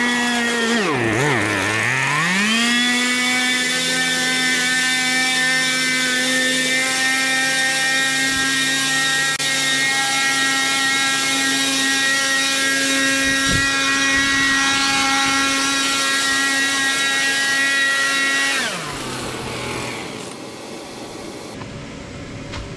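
Handheld leaf blower running, blowing dust out of a paint booth: a steady whine that wavers in speed briefly about a second in, holds at full speed, then winds down and stops about 19 seconds in. A quieter steady hum continues after it.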